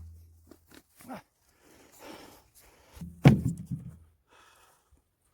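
Split firewood logs tossed into a metal hand cart: a couple of faint knocks, then a heavy thump about three seconds in that rings low and clatters briefly.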